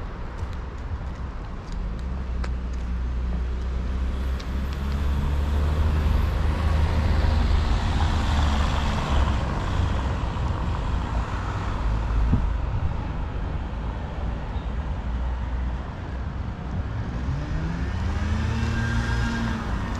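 Road traffic: a vehicle engine running and passing close, loudest about a third of the way in. Near the end an engine note climbs in pitch as a vehicle accelerates.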